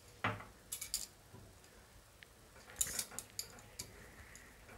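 A few light clinks and taps of a spoon against a bowl while seasoning is added, in small clusters near the start, about a second in and about three seconds in.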